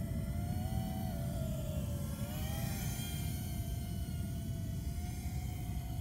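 The Eachine Seagull FPV plane's electric motor and propeller whining steadily, its pitch dipping and rising about two to three seconds in as the throttle changes, over a steady low rumbling noise.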